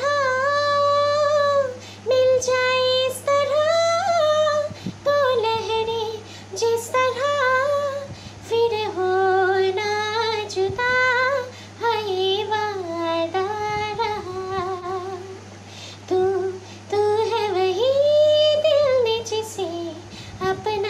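A woman singing a Hindi film song melody in phrases of held and gliding notes, over a steady low hum.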